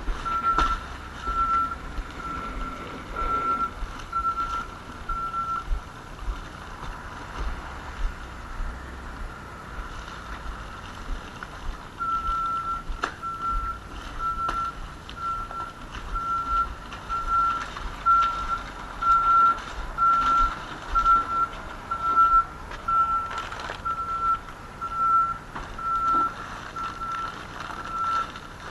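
A vehicle's reversing alarm beeping with one steady tone, about three beeps every two seconds, over a low rumble. The beeping stops for about six seconds partway through, then starts again.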